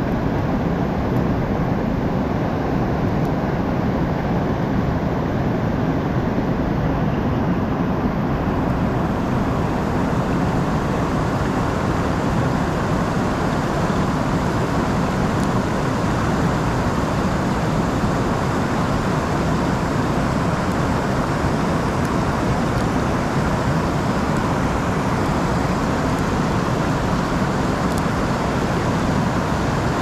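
River rapids rushing, a steady loud wash of water noise that drowns out the small sounds of the lock being picked.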